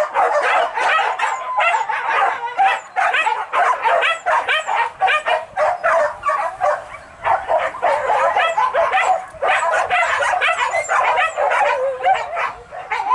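A pack of hunting dogs barking and yelping without pause, many short overlapping calls every second.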